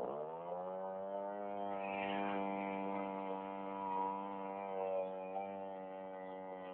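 STIHL two-stroke chainsaw running at cutting speed with its bar in a coconut trunk. The engine pitch dips briefly at the start as the chain bites, recovers, and then holds steady under load.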